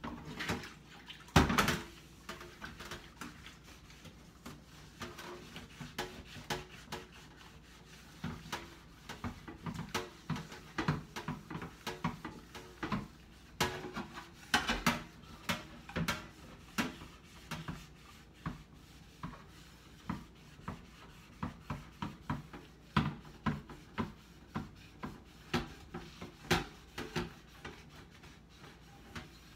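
Dishes and utensils being hand-washed in a stainless steel sink: irregular clinks and knocks with some splashing of water, and a louder clunk about a second and a half in.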